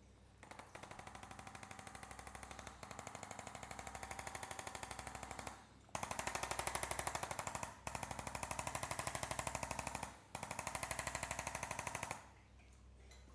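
Handheld electric massage device pulsing rapidly and evenly on the body, in four stretches with short breaks between them. It gets louder about three seconds in and again about six seconds in, and stops shortly before the end.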